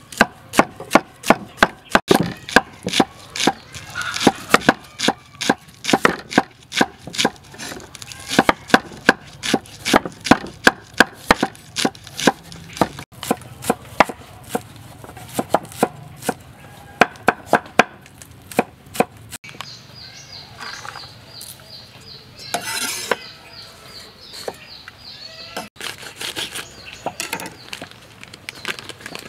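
Kitchen knife chopping spring onions and carrots on a round wooden chopping block: rapid sharp strikes, about three or four a second. The strikes thin out about two-thirds of the way through, leaving a thin high steady tone in the background.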